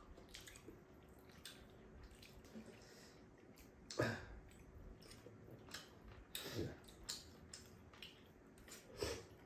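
People eating rice-cake tteokbokki: quiet chewing and mouth sounds with light clicks of chopsticks against the food and dishes, and two short voice sounds, one about four seconds in and one about six and a half seconds in.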